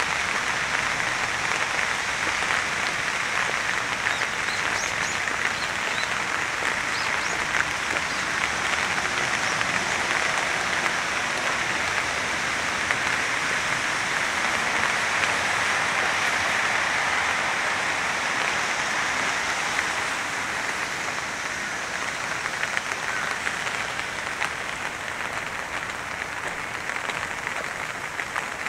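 Steady rain falling: a dense, even patter, easing slightly about two-thirds of the way through.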